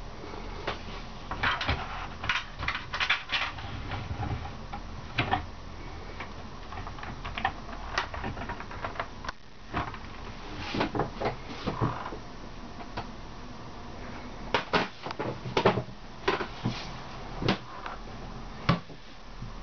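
Irregular clicks and knocks of handling in a small wooden yacht cabin, some in quick clusters and some single, over a low steady hum.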